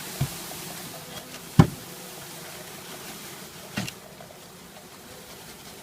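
A package of honeybees being knocked and shaken to tip the bees into the hive: three knocks, the middle one loudest, over a steady background hum.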